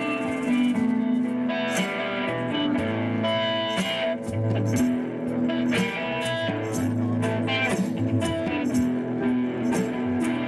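Live band playing an instrumental: electric guitars and bass guitar over steady drum and percussion hits.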